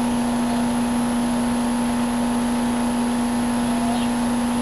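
Trane XR16 split-system outdoor condensing unit running in cooling, a steady hum from the compressor under the even rush of air from its two-blade condenser fan.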